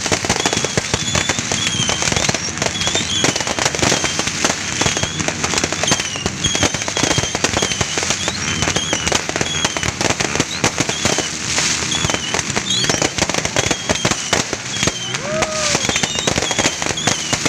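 Fireworks and firecrackers going off without pause: a dense, rapid crackle of small bangs, with short high whistles coming about once a second.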